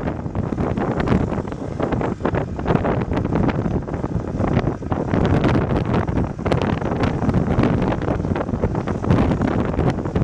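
John Deere 310SG backhoe loader's diesel engine running, with wind buffeting the microphone.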